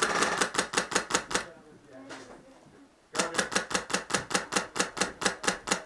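Airsoft gun firing on full auto at about eight shots a second: a short burst, a pause of about a second and a half, then a longer burst.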